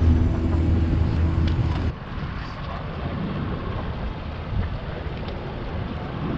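Boat motor running steadily with a low, even hum that cuts off abruptly about two seconds in, leaving wind rushing on the microphone and water noise.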